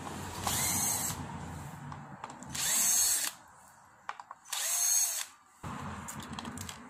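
Cordless power screwdriver run in three short spurts, about half a second each, backing out the screws of an induction cooker's casing.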